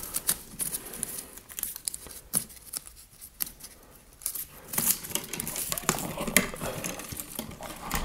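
Outer plastic sheathing being slit with a blade and peeled off yellow NM electrical cable, with the wires pulled apart by hand: faint scraping, rustling and tearing with scattered small clicks.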